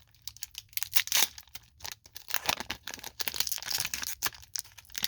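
Upper Deck hockey card pack wrapper being torn open and crinkled by hand, a run of sharp crackles and rustles.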